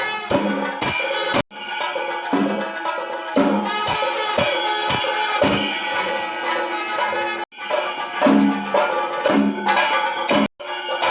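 Music with a melody over steady percussion, broken by three brief sudden drop-outs.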